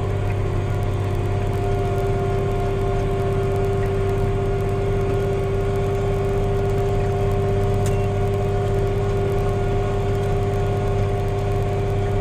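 Case IH Magnum tractor's diesel engine running steadily while driving the field at about 7 mph, heard from inside the cab: an even drone with a constant hum.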